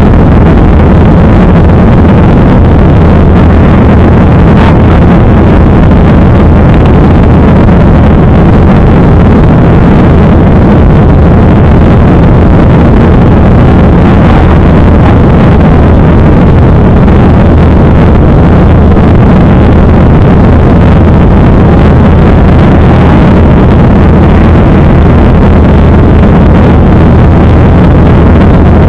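Airliner engine noise heard from inside the passenger cabin: a loud, unchanging rush with a strong low hum.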